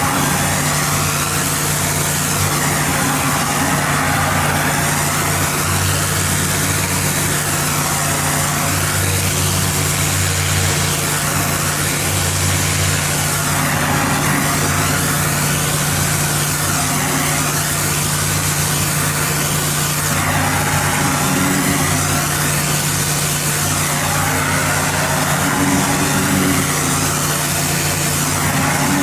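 Pressure washer's gas engine running steadily, with the even hiss of the high-pressure water spray over it.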